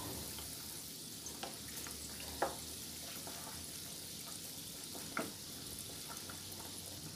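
Methi muthiya dumplings deep-frying in oil on a low flame: a steady sizzling hiss. A wooden spatula knocks lightly against the pan a few times as the dumplings are turned.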